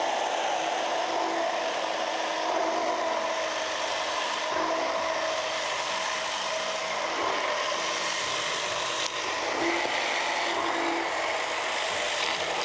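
Immersion (stick) blender running steadily in a tall beaker, emulsifying a mayonnaise base as oil is poured in, with a steady motor whine.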